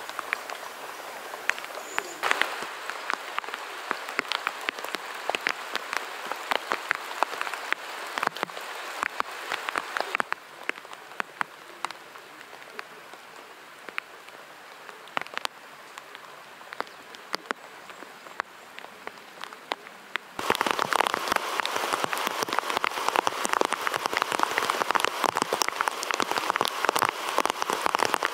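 Rain falling on a nylon camp tarp, a steady hiss with many separate drop hits. It turns clearly heavier and louder about two-thirds of the way in.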